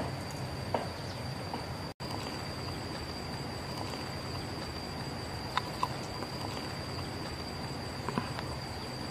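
Steady high-pitched insect drone, like a cricket or cicada chorus, over a low even background hiss. A few short light clicks and knocks sound, two close together about five and a half seconds in and another pair about eight seconds in.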